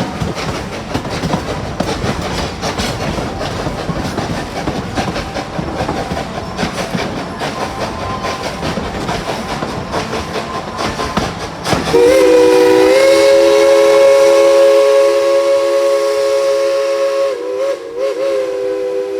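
Narrow-gauge 2-8-2 Mikado steam locomotive No. 190 and its train running, with a steady rumble and clatter on the rails. About twelve seconds in, the locomotive's steam whistle sounds one long chord of several tones, held for about seven seconds and wavering briefly near the end.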